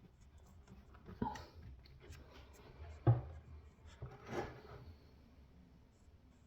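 Handling noises of wood: three soft knocks and rubs, the loudest a dull thump about three seconds in.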